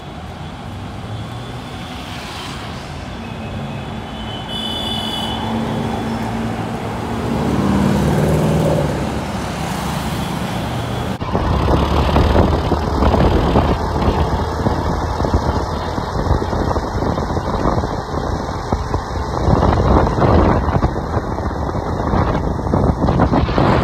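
City road traffic with engines running and a rising engine note about eight seconds in. After a sudden change about eleven seconds in, louder, steady road and wind noise with engine rumble from a car driving close by.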